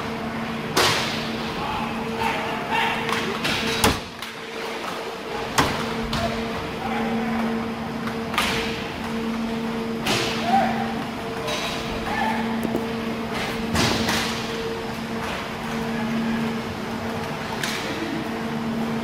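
Inline roller hockey play: sharp knocks and clacks of sticks, puck and skates against the boards and glass, one every few seconds, over a steady hum, with faint distant calls from players.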